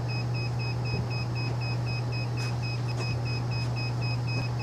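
Rapid pulsing electronic beep, about four pips a second, from a Glendinning electronic engine control head sounding its alarm, over a steady low hum. The beeping signals that the control system has gone into alarm mode.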